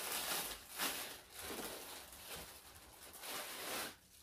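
Thin plastic packaging bag crinkling and rustling in a series of short bursts as it is unwrapped and pulled off a stack of caps.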